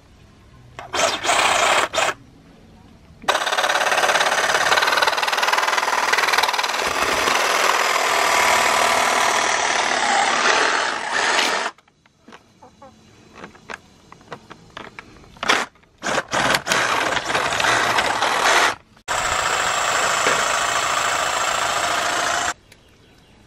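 Ryobi cordless reciprocating saw cutting through a plastic crate, in several runs: a short burst about a second in, a long cut of about eight seconds, then a few short bursts and a final cut of about three seconds, with quiet pauses between them.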